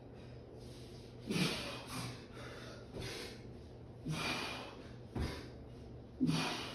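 A man breathing hard during dumbbell sit-ups, with a sharp exhale about once a second.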